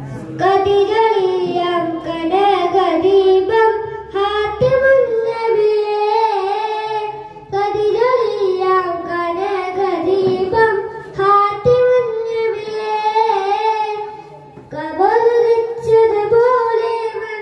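A boy singing an Islamic devotional song solo into a microphone, in long phrases with wavering, ornamented notes. He breaks briefly for breath a few times.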